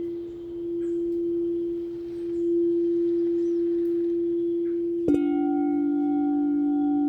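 Singing bowl ringing with one steady tone that swells and fades in loudness. About five seconds in, another bowl is struck and rings on with a lower, fuller chord of several overtones.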